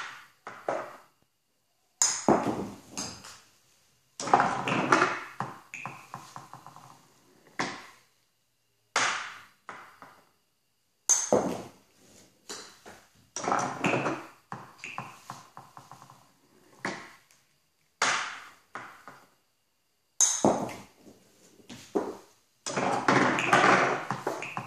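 A golf driver striking balls off a rubber tee with sharp pings, mixed with the clacking and rattling of a pedal-operated plastic ball dispenser as its arm swings down to set a new ball on the tee and lifts back up. The sounds come in separate bursts, with short silences between them.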